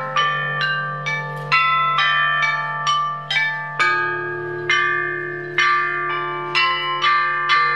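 Bronze chime bells (bianzhong) struck one at a time with a mallet, playing a slow melody: each note starts sharply and rings on with many overtones, the notes overlapping as they decay.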